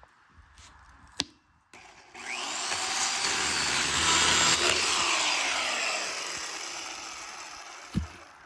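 A motor passing by: a loud, noisy mechanical sound swells up, peaks and slowly fades away, its pitch sliding downward as it goes. There is a sharp click about a second in and a thump near the end.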